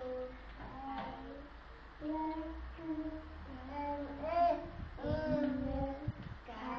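A toddler singing a simple tune in short held notes, with a few low knocks of handling about two-thirds of the way through.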